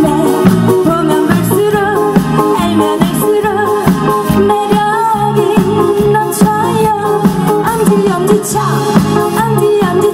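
Live band performing a Korean trot song: a woman singing into a microphone over electric guitar and a drum kit keeping a steady beat.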